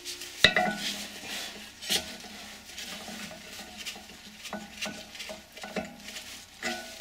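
Metal clinks and clanks from a bolt-on puller and a hand tool knocking against a squirrel cage blower wheel's hub as the puller's bolts are turned in: a sharp clank about half a second in, another near two seconds, then a run of lighter clinks near the end.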